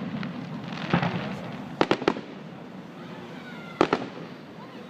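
Fireworks going off: sharp bangs over steady crackling, with a quick cluster of reports just before two seconds in and one loud single bang near four seconds.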